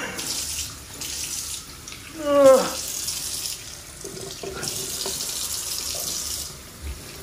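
Kitchen tap running into a stainless steel sink, the stream splashing as a large trout is held and moved under it, the hiss growing and fading. About two and a half seconds in, a short voice sound falling in pitch.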